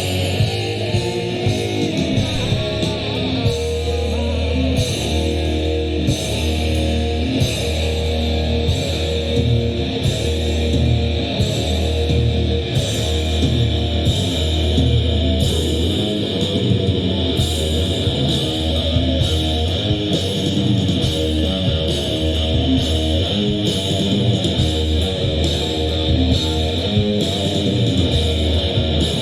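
Live rock band playing an instrumental passage: distorted electric guitars over a steady bass line and an even beat.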